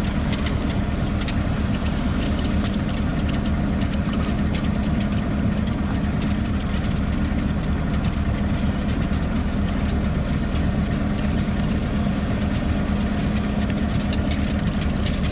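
Motor vehicle engine running steadily with a constant low hum and faint scattered rattles, cutting off abruptly at the very end.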